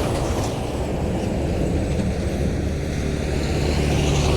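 Steady low engine rumble of a passing motor vehicle, swelling slightly near the end.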